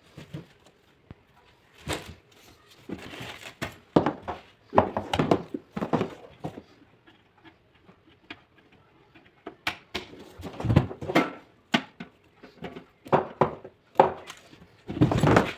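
Packaging and parts of a rework station being handled during unboxing: irregular knocks, taps and clicks with bits of rustling, some in quick clusters.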